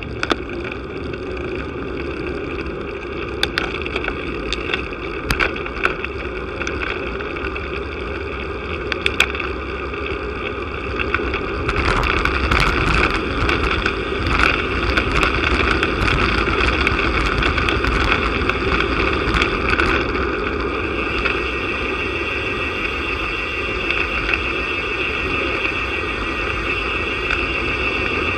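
Wind rushing over the microphone of a bicycle-mounted camera and tyre rumble on asphalt during a fast road-bike descent. Scattered sharp knocks and rattles come from bumps in the road, thickest from about twelve seconds in, on a stretch of cracked tarmac.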